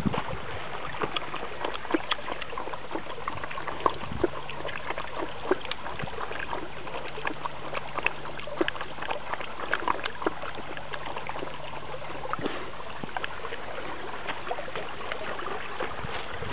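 Kishu dog lapping water from a flowing irrigation ditch: a dense, irregular run of quick wet clicks and splashes as its tongue hits the water.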